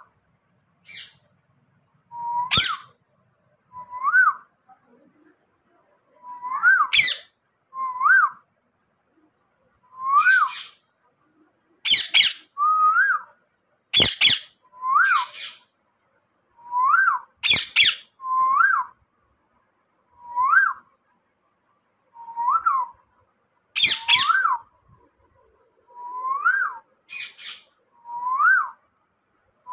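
A green Psittacula parakeet calling over and over. It gives short rising whistles about every two seconds, broken by about nine loud, harsh squawks.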